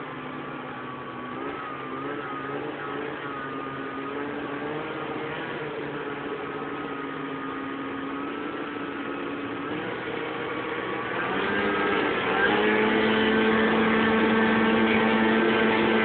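Lynx GLX snowmobile engine running under way. Its note wavers at a moderate speed, then rises and gets louder about eleven seconds in as the machine speeds up, and holds a higher, steady note to the end.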